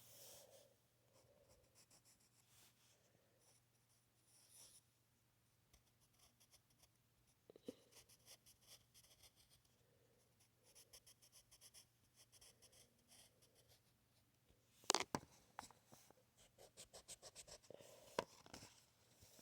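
Faint scratching of drawing strokes on paper, coming in quick runs of short strokes, with one sharp knock about fifteen seconds in.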